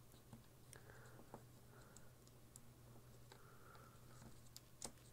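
Faint, scattered small clicks and taps from tucking a stripped wire behind the spring of a plastic battery holder, with one sharper click near the end, over a low steady hum.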